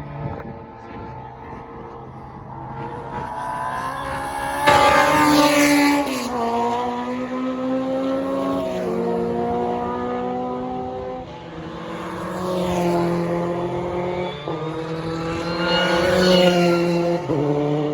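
Historic Formula 2 racing cars at full throttle, passing by. The engine notes climb through the revs and drop sharply at each upshift. The loudest pass comes about five seconds in and another comes near the end.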